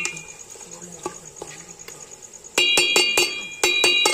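Steel ladle clanking against the sides of a large metal cooking pot while stirring raw mutton pieces. There is a single ringing clink at the start, then quick runs of clinks about two and a half seconds in and again near the end.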